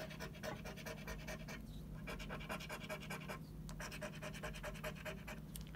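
Scratch-off lottery ticket being scratched: rapid scraping strokes across the card's latex coating, several a second, with two brief pauses.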